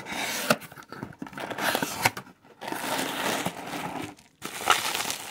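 Plastic bubble wrap crinkling and rustling with sharp crackles as a wrapped item is pulled from a cardboard box and handled, in bursts with two short pauses.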